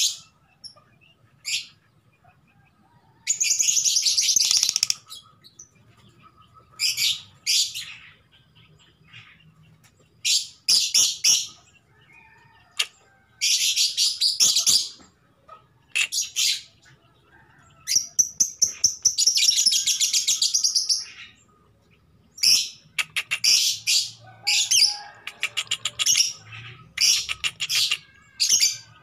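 Female Fischer's lovebird in breeding condition giving shrill, chattering calls in bursts of one to three seconds with short pauses between them, turning into rapid clicking chatter near the end. This is the call a hen in heat uses to draw a male.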